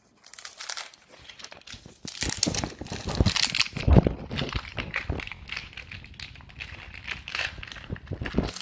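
A baseball card pack's wrapper being torn open and crumpled by hand, an uneven crinkling that goes on for several seconds, with a dull bump about four seconds in.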